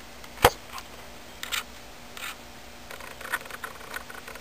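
Handling noise from reloading a plastic-tube barrel with a thin rod: one sharp click about half a second in, then faint scattered clicks and scrapes of plastic and rod.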